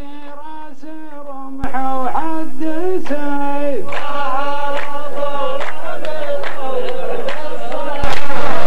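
Men's voices chanting a verse of Arabic sung poetry in unison, with long held, drawn-out notes, as the rows of men do in a Saudi muhawara poetic duel. The sound jumps abruptly louder about two seconds in and again near the end.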